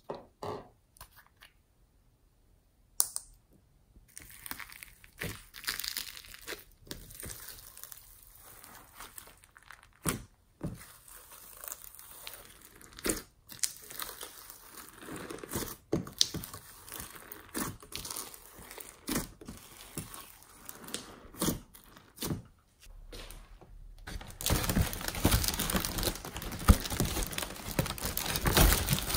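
Hands squishing and pulling glittery slime thick with sequins and beads, making irregular sticky pops, crackles and tearing sounds. Near the end a foil balloon is crumpled in the hands, a dense continuous crinkling that is the loudest part.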